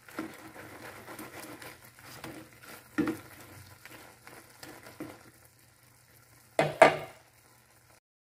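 Shrimp in a garlic-margarine sauce sizzling and bubbling in a wok while a spatula stirs and scrapes the pan, with many small clicks and a few louder knocks. Two loud clatters come near the end, then the sound cuts off.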